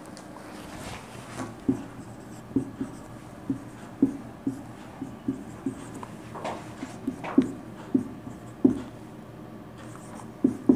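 Marker pen writing numbers on a whiteboard: an irregular series of short taps and scratchy strokes.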